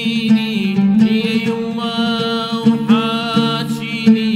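A man singing an Iraqi folk song in a wavering voice with vibrato, to plucked oud, over steady held low notes.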